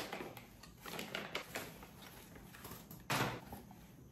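Faint handling noises: a few light taps and clicks, then a short louder rustle about three seconds in, as items and packaging are moved about on a table.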